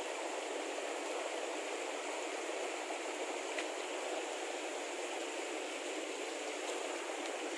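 Steady rush of flowing stream water, with one faint click about three and a half seconds in.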